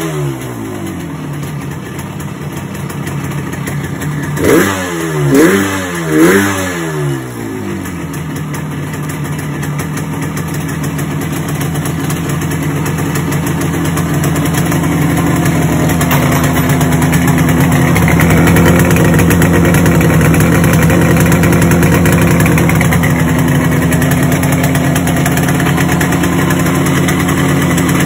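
Yamaha RD350's air-cooled two-stroke parallel twin running, with three quick throttle blips about five seconds in. After that the idle slowly climbs and holds higher, which the owner puts down to the petrol running nearly dry.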